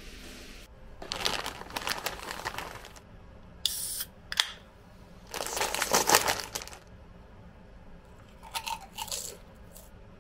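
Foil-lined snack bag crinkling in irregular bursts as it is handled and torn open, loudest about six seconds in.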